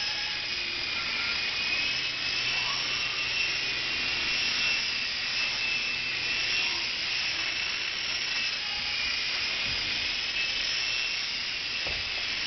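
Blade mCX micro coaxial RC helicopter in flight: its small electric motors and twin rotors give a steady high-pitched whine over a hiss, the pitch wavering slightly as it manoeuvres.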